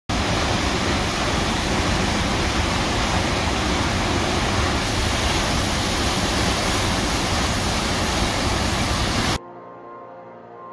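Steady roar of a waterfall pouring into a narrow rock gorge, cut off abruptly about nine seconds in, after which soft music starts.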